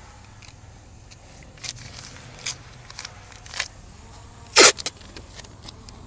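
Masking tape being pulled and torn while masking a car's door shut: a series of short rips with one much louder rip about two-thirds of the way through, and a few small clicks.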